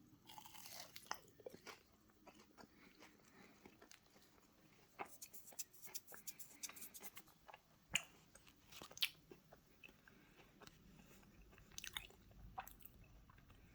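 A person bites and chews a crunchy battered chicken tender: faint crisp crackles and crunches in irregular bursts, with a few sharper snaps.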